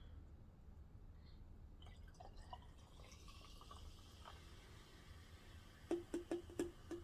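Faint eating and mouth sounds, ending in a quick run of about six sharp clicks near the end.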